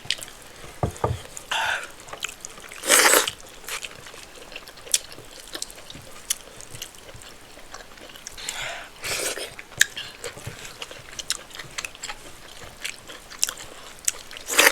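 Close-miked chewing and wet mouth clicks of a person eating rice, spinach stew and chicken, with two louder noisy bursts about three and nine seconds in.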